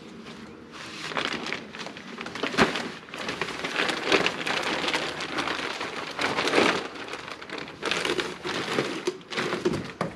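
Clear plastic wrapping being pulled off a large cantilever umbrella and crumpled up by hand: irregular crinkling and rustling that comes in uneven loud bursts from about a second in.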